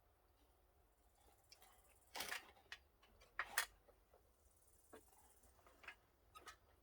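Near silence broken by a few scattered knocks and clicks: a short scrape-like knock about two seconds in, two sharper knocks a second or so later, and faint ticks near the end.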